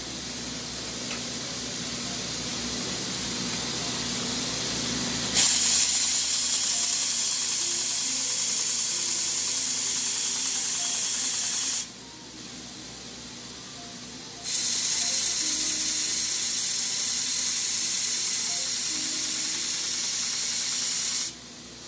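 Belt sander running, with a brass valve tube pressed against the abrasive belt to even out machining distortion on its exterior. For about five seconds the belt runs freely; then a loud, steady grinding hiss starts suddenly, stops about twelve seconds in, and returns for a second pass of about seven seconds near the end.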